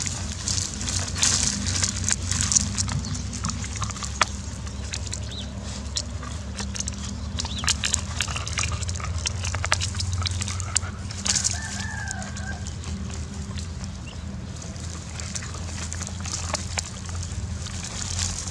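Puppy gnawing on the dry, fibrous base of a palm frond, giving scattered crunching clicks over a steady low hum. A chicken clucks briefly about eleven seconds in.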